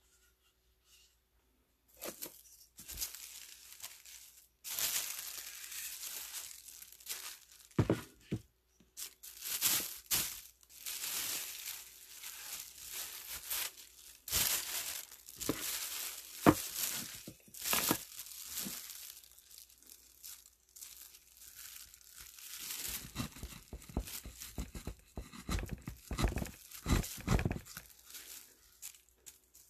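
Plastic sheeting crinkling and rustling close to the microphone in irregular crackly bursts, with a run of soft handling knocks near the end.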